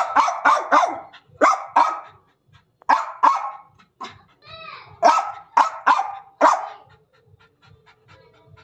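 German Spitz barking sharply in quick bursts of two to four barks, about a dozen in all. The barking stops about seven seconds in, and the dog pants rapidly.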